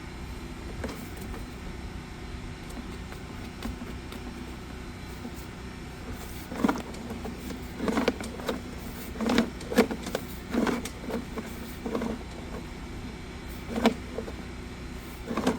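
A steady low engine hum, with a string of short knocks and clunks starting about halfway through.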